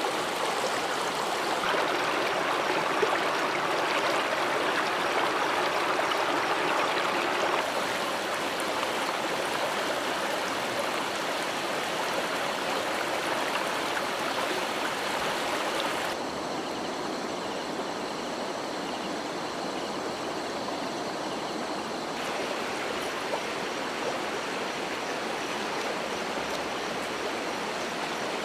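Shallow mountain stream rushing over rocks and small rapids, a steady, even rush of water. It changes abruptly twice, and about halfway through it becomes quieter and duller.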